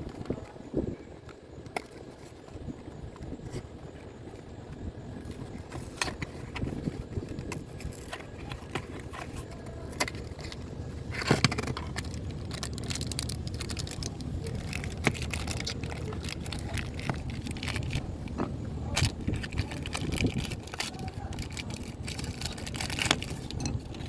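Irregular metallic clinks, taps and knocks of hand tools and parts being handled, over a steady low background rumble.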